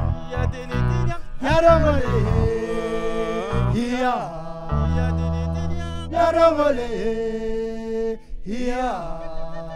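Group singing of a Turkana song in a chant-like style: short sung phrases, each rising and falling in pitch, recur about every two seconds over steady held accompaniment notes.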